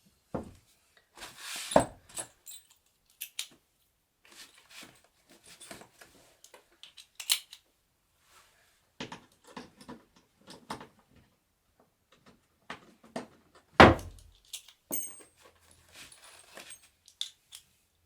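Wooden bed parts and hardware being handled during assembly: irregular knocks, clatters and light rattles, with a scraping rustle early on and one heavy thunk about two-thirds of the way through.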